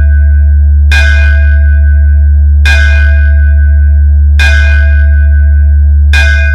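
DJ sound-check track: a very loud, unbroken deep bass drone with a bell-like chime struck four times, about every 1.7 seconds, each ringing on.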